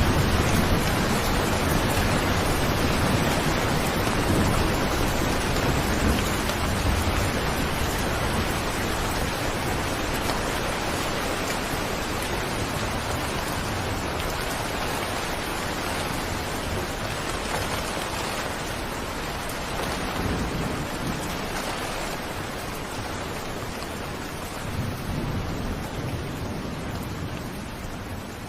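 Steady rain falling, with low rumbles of thunder a few times. The whole sound gradually fades out.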